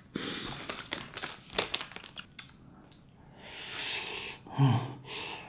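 A plastic instant-noodle packet crinkling and a fork clicking against a bowl, then a long slurp of noodles about three and a half seconds in, followed by a short low hum.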